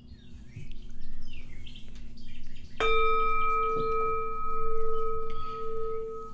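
A singing bowl struck once about three seconds in, ringing on with a slow wavering hum and several higher overtones. Faint birdsong chirps before the strike.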